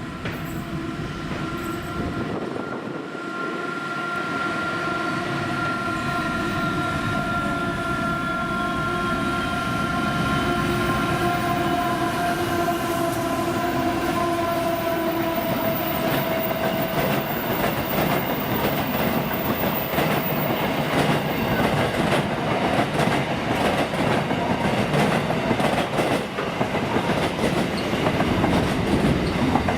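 Diesel-hauled freight train passing close by. For the first half there is a whine on several steady pitches that sink slightly. After that comes a quick, continuous run of wheel clicks over the rail joints, growing a little louder toward the end.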